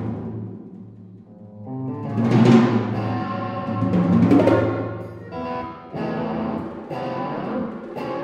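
Avant-garde chamber music for accordion, electric guitar and percussion: held, layered tones, with percussion swelling up about two seconds in and again near four and a half seconds.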